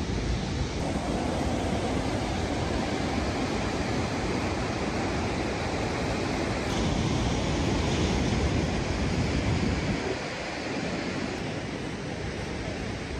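Ocean surf breaking and washing along the shore, with wind rushing on the microphone. The noise drops a little about ten seconds in and stays steadier after that.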